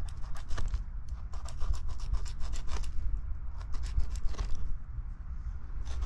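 Landscape fabric being pulled by hand out of crushed gravel: loose stones crunch and rattle in an irregular run of small clicks while the fabric rubs and rustles against the rock.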